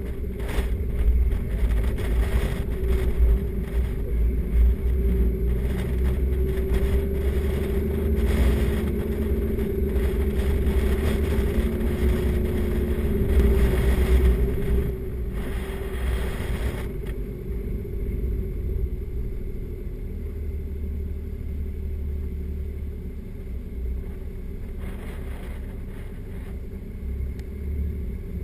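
Four-wheel-drive vehicle driving slowly along a rough sand track, heard from a roof-mounted camera: a steady engine drone over a low rumble, with rushes of wind-like noise that ease off about two-thirds of the way through.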